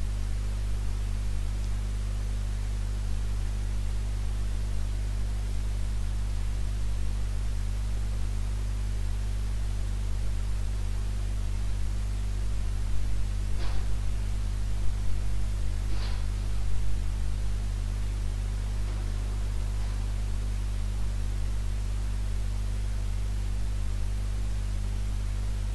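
A steady low electrical hum with hiss, like mains hum in a recording chain. It has a couple of faint brief ticks around the middle.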